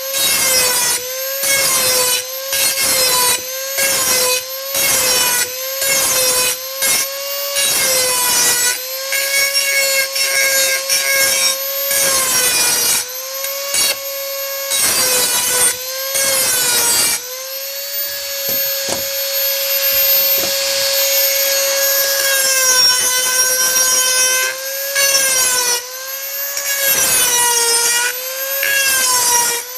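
Dremel 4000 rotary tool running at high speed, sharpening a tool edge in short repeated grinding passes, a little over one a second, the motor's whine dipping in pitch under each pass. About halfway through it runs steadily for several seconds with no passes, then the passes resume.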